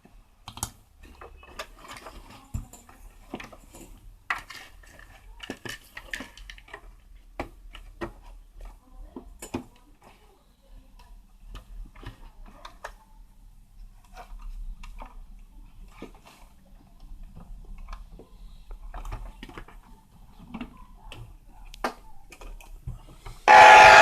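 Clicks and knocks of a Sony radio cassette recorder being plugged in and its controls worked, over a faint low hum. Near the end the set's speaker suddenly comes on loud, a sign that its audio output works again after the power-surge repair.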